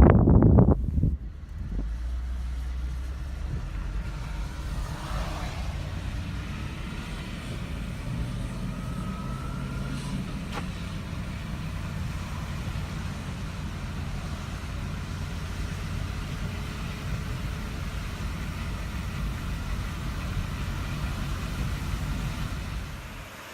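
Car running with a steady low rumble and a faint hiss, after a loud buffet of wind on the microphone in the first second. The rumble fades out near the end.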